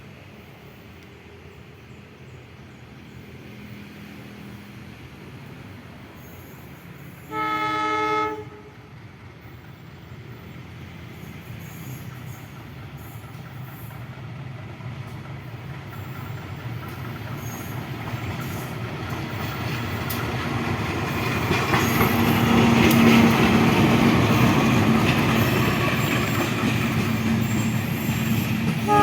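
Train horn sounds once for about a second, then an approaching train's running noise builds steadily, loudest about three-quarters of the way through. A short horn blast comes at the very end.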